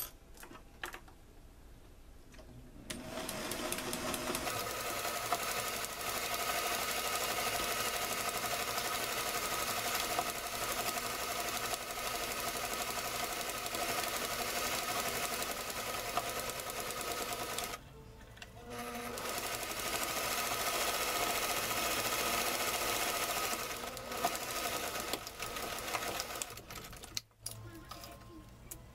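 Electric household sewing machine stitching a seam, starting about three seconds in and running steadily. It stops briefly a little past halfway, runs again, and stops a few seconds before the end.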